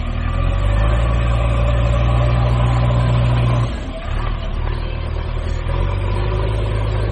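Engine sound running steadily with a deep low hum; it dips briefly about four seconds in and carries on a little lower.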